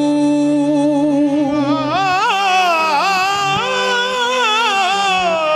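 Male qawwali singer holding a long note for about two seconds, then singing wordless ornamented runs that rise and fall in pitch, over a steady low drone.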